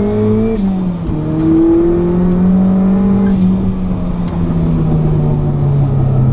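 Turbocharged 1990 Mazda MX-5's four-cylinder engine revving high on track, heard from inside the cabin. The revs drop sharply about a second in, climb again, then hold nearly steady, easing slightly toward the end.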